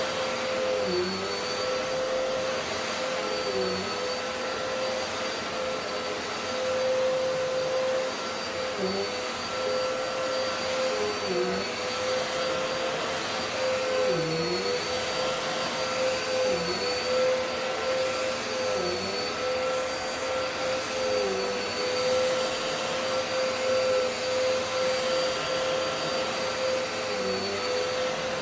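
Dirt Devil Multi-Surface Rewind upright vacuum cleaner running steadily with a constant whine over its airflow hiss. The pitch dips briefly every two to three seconds.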